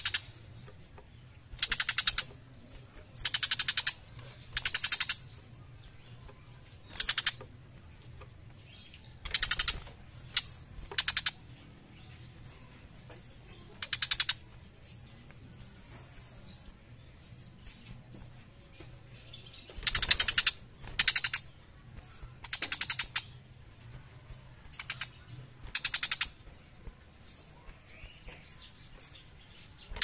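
Young tiger shrike giving harsh, rapidly rattling chatter calls in short bursts, about a dozen of them with quiet gaps between. A faint low hum runs underneath.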